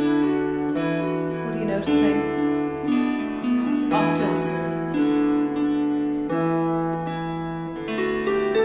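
Wire-strung early Irish harp played slowly, a tune over bass notes with the plucked strings ringing on into each other. The piece is a harp rendering of a tune transcribed from a 17th-century Scottish lute manuscript.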